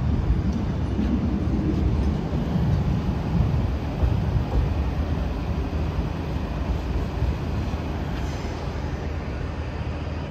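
Double-deck electric commuter train rolling slowly along the platform, a steady low rumble of wheels on rails that eases off after about five seconds.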